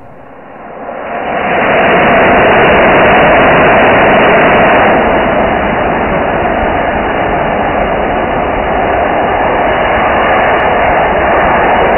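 Solid rocket motor static fire: a loud, steady rush of exhaust that builds up over about the first two seconds after ignition. The exhaust jet is striking servo-driven ceramic throttle paddles. The level drops a little about five seconds in.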